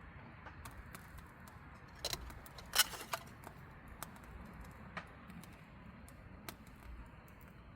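A few scattered sharp clicks and light knocks over a faint steady hiss, the loudest a quick cluster about three seconds in.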